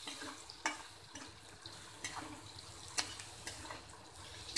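Flat metal spatula scraping and clinking against a steel kadhai as chopped onion and curry leaves are stir-fried in oil, over a soft frying sizzle. Several sharp clinks about a second apart.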